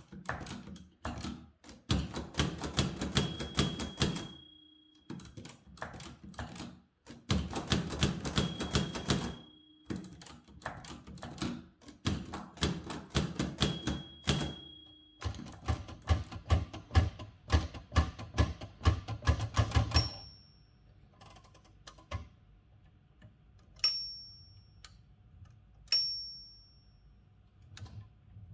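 Typewriter typing in three quick bursts of key strikes, each line ending with the ring of the margin bell. Then a run of typing over a low motor hum, followed by higher single bell dings about every two seconds.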